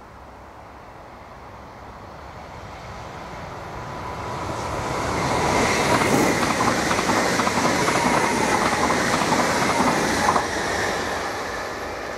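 Sprinter electric passenger train passing over the level crossing. It grows louder for about five seconds, then gives a dense clatter of wheels over the rail joints with a steady high tone for about four seconds, and fades.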